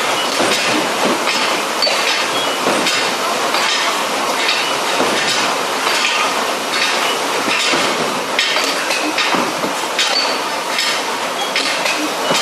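Programmable paper-cutting machine running: a steady mechanical clatter with repeated metallic knocks and clinks roughly once a second.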